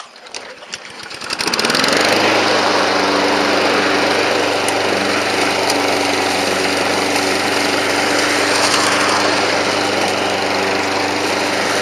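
Honda push lawnmower's four-stroke engine pull-started. It catches after about a second and a half, then runs steadily and loudly at a fixed speed.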